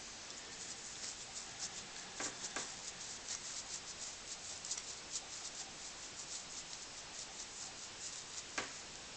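Faint, quick scratchy rubbing of hand-polishing work on a brass blowtorch, with a few light clicks and knocks, two of them about two seconds in and one near the end.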